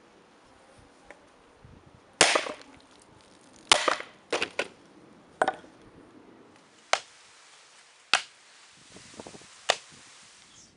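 Hand-forged double-bitted axe chopping into a coconut and the wooden block under it: about eight sharp cracking chops at uneven intervals, the first about two seconds in and the last near the end.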